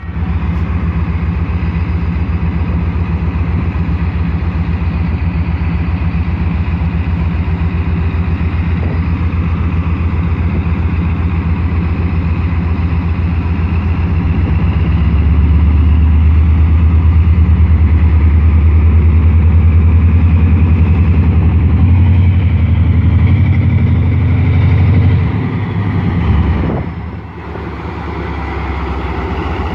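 Diesel-electric locomotive of the ZCU-30 class (a GE U30C) running under power as it draws its train out of the station, a low engine sound with a fast steady beat. It grows louder about halfway through, dips briefly near the end, then builds again.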